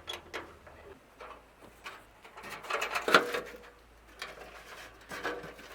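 Irregular knocks and metal clanks from the steel toolbox's sheet metal being worked, the loudest group about three seconds in with a brief ring.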